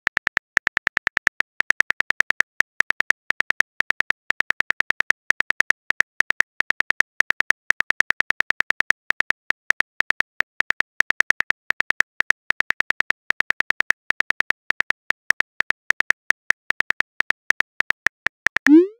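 Simulated phone keyboard typing sound: rapid short clicks, several a second, as a text message is typed out. Just before the end a quick rising whoosh marks the message being sent.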